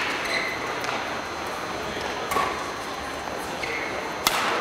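Badminton rackets striking the shuttlecock a few times during a rally, the sharpest crack about four seconds in, with short squeaks of shoes on the court floor over the murmur of a large hall.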